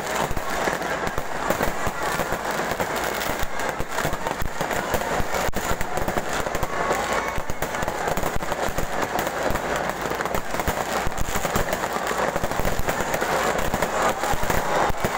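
Fireworks and firecrackers going off continuously, with many rapid pops and cracks overlapping without a break.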